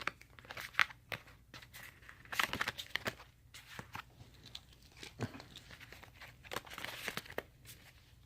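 A Pokémon TCG booster pack and its cards being handled: scattered small clicks and crinkling rustles, thickest about two and a half seconds in and again near seven seconds in.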